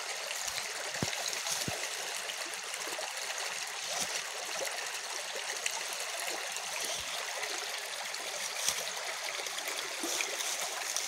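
A small burn flowing and trickling steadily, with a few faint clicks scattered through it.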